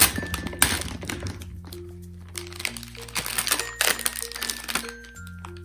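Plastic blind-bag wrapper crinkling in short spells as it is pulled open and a hand rummages inside it, over background music with held notes.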